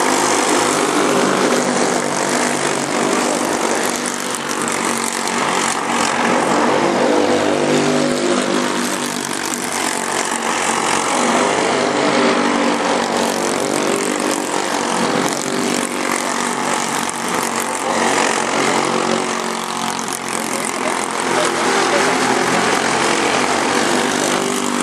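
Racing kart engine running hard, its pitch rising and falling every few seconds as it revs up on the straights and drops off into corners.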